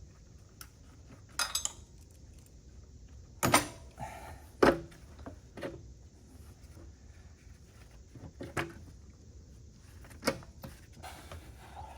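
Hand tools clinking and knocking against metal in a car's engine bay while the alternator is unbolted: scattered sharp clinks, the loudest two about three and a half and four and a half seconds in.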